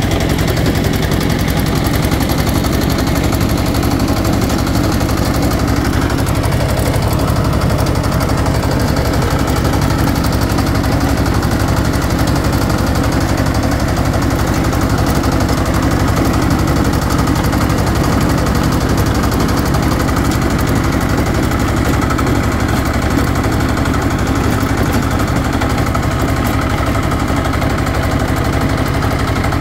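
Single-cylinder diesel engine of a walk-behind power tiller running steadily under load, its exhaust beating fast and evenly, as the rear rotary tiller churns through the soil.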